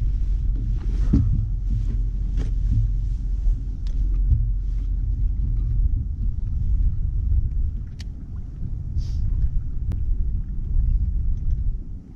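Steady low rumble aboard a bass boat on open water, with a few faint clicks in the second half.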